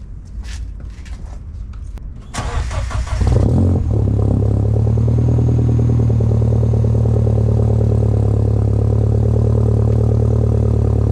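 Mini Cooper S R56's 1.6-litre turbocharged four-cylinder starting through a new full stainless cat-back exhaust. The starter cranks for about a second, the engine catches with a brief rev, then settles into a steady idle with a deep exhaust note. A few faint knocks come first.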